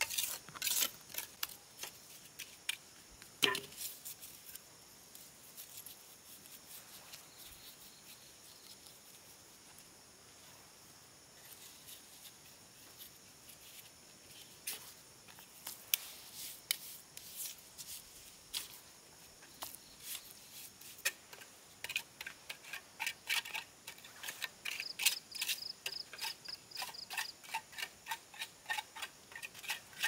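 A steel bricklayer's trowel knocking on bricks and scraping cement mortar: one sharp knock a few seconds in, then a run of quick taps and scrapes in the second half. A steady high insect buzz runs underneath.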